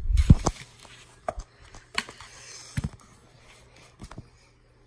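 A plastic-wrapped multipack of Yakult bottles being handled: thumps and plastic crinkling in the first half second, then a few scattered light knocks.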